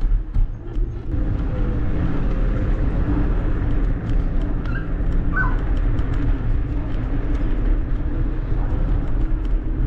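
A motor vehicle's engine running steadily with a low rumble, under scattered light clicks and a brief short chirp near the middle.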